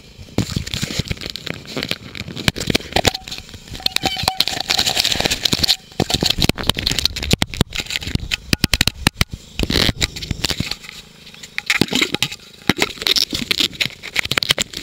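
Handling noise on the camera's microphone: a hand and glove rubbing and pressing on the camera, giving loud, irregular crackling and scraping in dense clusters with short gaps.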